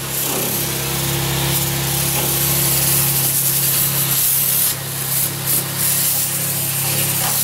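Electric sprayer pump running with a steady hum while clean water hisses out of its spray wand into the radiator fins, rinsing dirt out of the radiator.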